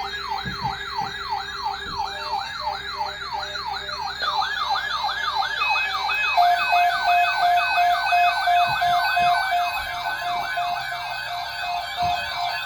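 Electronic siren yelping, its pitch sweeping rapidly up and down about three to four times a second. A second siren overlaps it a few seconds in, and a steady pulsing tone joins about halfway.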